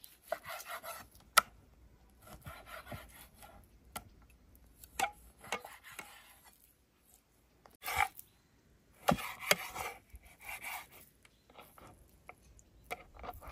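Large kitchen knife cutting raw chicken breast into chunks on a wooden cutting board: irregular scraping strokes through the meat, with sharp taps as the blade meets the board.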